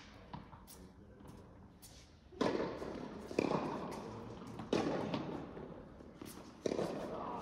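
Tennis ball struck by rackets during a rally in an indoor tennis hall: four sharp hits a second or two apart, each ringing on in the hall's long echo.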